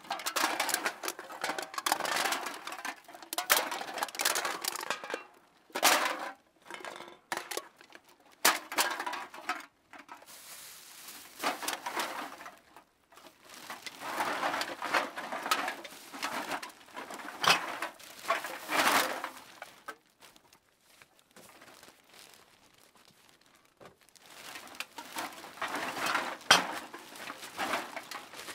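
Runs of rapid clattering and clinking from light, hard objects knocking together, a few seconds each, with quiet pauses between the runs.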